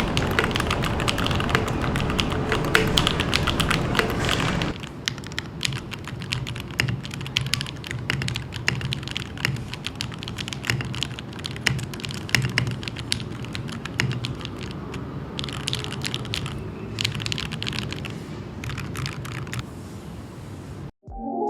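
Fast typing on an NK65 Milkshake Edition mechanical keyboard with lubed and filmed NK Silk Yellow linear switches, lubed stabilizers and a tape mod, a dense run of key clacks. The typing is louder and fuller for the first four seconds or so, then softer, and stops shortly before the end.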